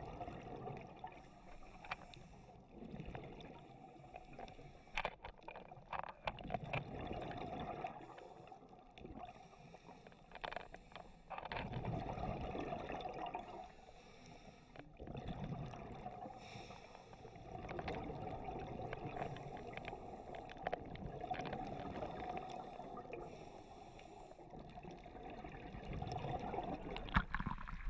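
Scuba diver breathing through a regulator underwater: muffled bubbling exhalations that swell and fade every few seconds, alternating with short hissing inhalations.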